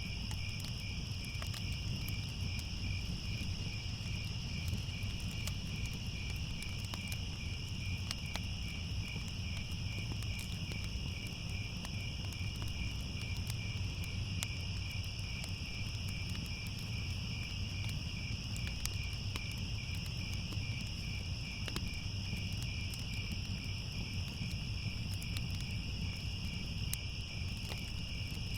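A chorus of crickets chirping steadily, over a low rumble with scattered faint crackles of a fire.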